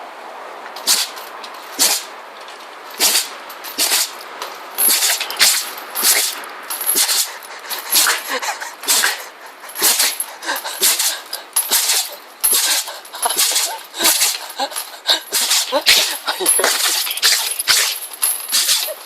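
A Jindo dog sneezing over and over, short sharp sneezes about one a second, coming faster near the end. The owner takes the fit of sneezing for a cold.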